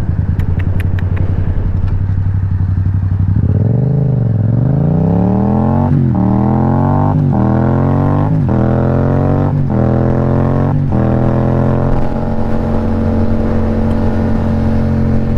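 Yamaha FZ-07's parallel-twin engine running at low speed for a few seconds, then accelerating hard: the pitch climbs through each gear, with five quick upshifts about a second apart. From about eleven seconds in it settles into a steady drone at highway speed in sixth gear.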